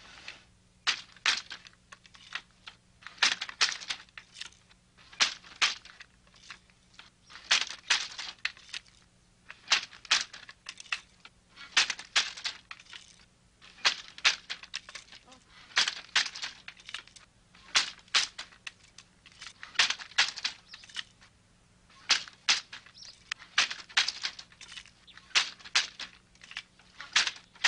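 Manual hand loom weaving hemp cloth: a cluster of sharp wooden clacks about every two seconds, in a steady working rhythm.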